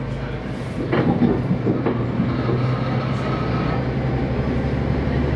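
Diesel railcar running on the rails, its engine hum steady and low, growing louder about a second in, with a few short clanks from the train.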